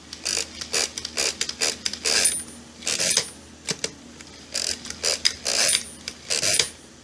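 Hand-cranked mechanical calculator being turned over and over in long division, each turn of the crank a short rattling clatter of gears and ratchet, coming in quick clusters with a pause near the middle.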